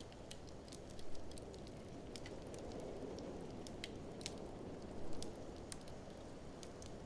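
Wood fire crackling in an open fireplace: irregular sharp pops and snaps, a couple of louder bursts, over a steady rushing background of snowstorm wind that swells and eases.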